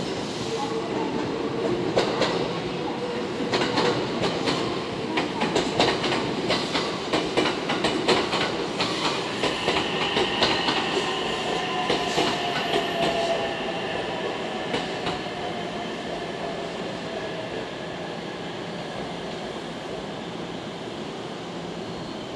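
JR West 227 series two-car electric train rolling in and slowing nearly to a stop, its wheels clattering over rail joints and points. A motor whine falls in pitch in the middle as the train brakes, and the clatter fades away in the second half.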